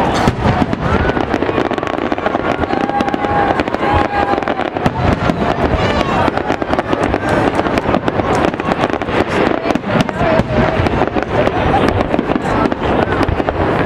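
Aerial fireworks display: a continuous, dense run of bangs and crackles from shells bursting overhead.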